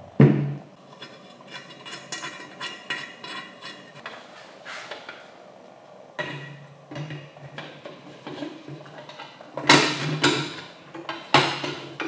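Metal parts of an electric coffee grinder knocking and clinking as it is reassembled. A sharp knock comes as the sheet-metal housing is set down on the workbench, then light clinks follow. Later come several louder knocks and clinks as the transparent hopper with its aluminium base is fitted to the housing, the loudest about ten seconds in.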